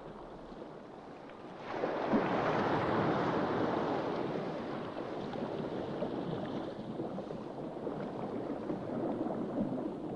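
A wash of moving water, like surf or sea noise, that swells suddenly about two seconds in and then slowly eases.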